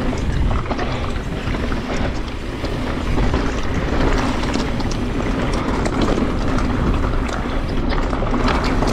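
Mountain bike descending a rough trail at speed: wind buffeting the microphone over a steady rumble of tyres on rock and gravel, with frequent short rattles and knocks from the bike.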